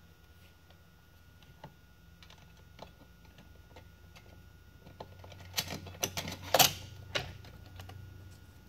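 Scattered clicks and knocks over a faint low hum, with a quick cluster of louder knocks about five to seven seconds in.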